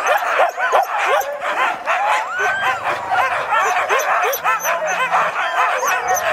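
A team of harnessed sled-dog huskies yipping, whining and barking all at once, a dense chorus of overlapping short rising-and-falling cries with no break. It is the eager clamour of sled dogs hitched up at the start and waiting to run.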